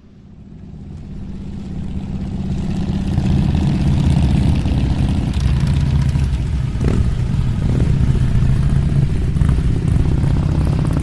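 Motorcycle engine running steadily, fading in over the first three seconds.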